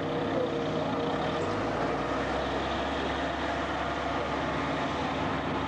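Big diesel tractor engine running steadily, with other heavy engines around it. A deep low rumble sets in about a second and a half in.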